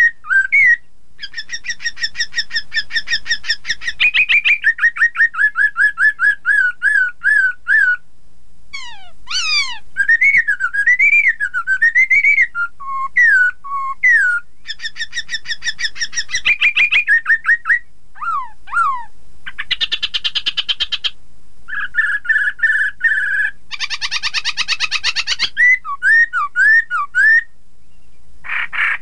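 Black-throated laughingthrush (poksay) singing loud, varied whistled phrases. These include long runs of rapid repeated notes, rising and falling whistles, and a couple of harsher, raspy passages about two-thirds of the way through.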